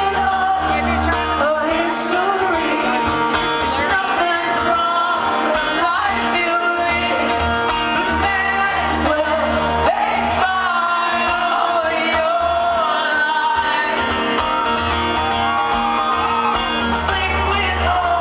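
Live concert audio of a male singer singing with acoustic guitar, the room's sound heard through a handheld recording.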